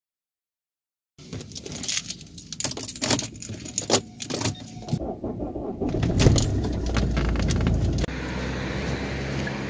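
Keys jangling, a quick run of clicks and rattles starting about a second in, followed by a low rumble and then steady outdoor street noise.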